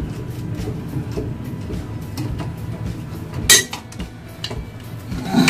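Water-pump pliers clinking against a metal sink drain fitting while being worked and pulled off: one sharp clink about three and a half seconds in and another near the end, with faint light taps between.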